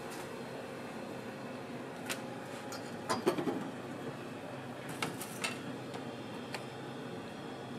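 Kitchen utensils clicking and knocking now and then against a cutting board and plastic containers, the loudest cluster about three seconds in, over a steady background hum.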